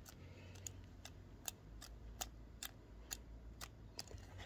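Faint, even ticking, about two light ticks a second, over a low steady hum.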